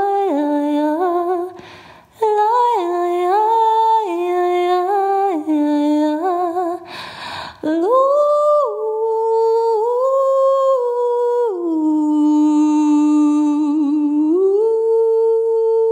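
Wordless solo vocal toning, a cappella. One voice moves through short stepping notes, breaks off briefly twice, then settles into long held tones. It dips to a low held note and rises again to a steady held note near the end.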